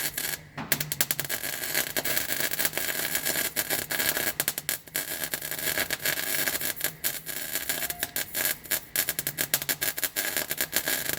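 Welding arc crackling and sizzling, broken by many short gaps between bursts.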